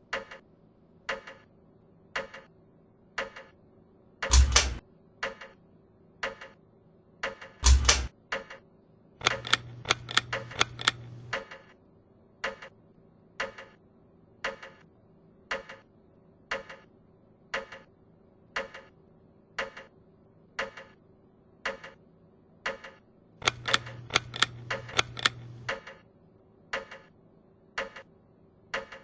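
Ceiling fan ticking evenly about once a second. Two loud knocks come about four and eight seconds in, and two stretches of rapid clicking over a low hum come about nine and twenty-four seconds in.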